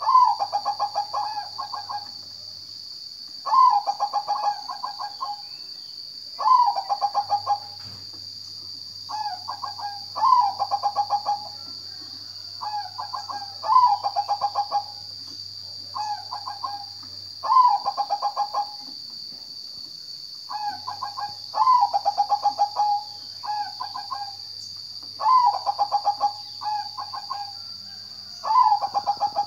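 Zebra dove (perkutut) singing: its staccato, rapidly pulsed cooing phrase repeated about every three to four seconds, around nine times. A steady high-pitched whine runs underneath.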